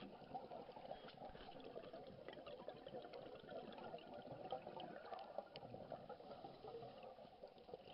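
Faint underwater bubbling and gurgling of scuba divers' exhaled air bubbles, with many small scattered clicks and crackles.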